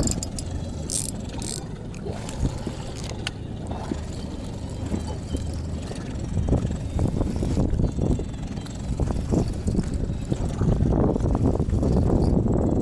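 Wind and water noise aboard a small inflatable boat at sea: a steady low rumble, with irregular rustling and splashing that gets stronger in the second half.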